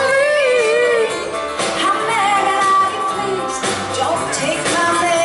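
A woman singing a melody with vibrato over a live band, with acoustic guitar and acoustic bass guitar.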